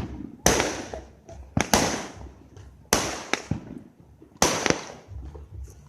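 Fireworks going off: a string of loud, sharp bangs about every second and a half, some in quick pairs, each followed by a fading crackle and echo.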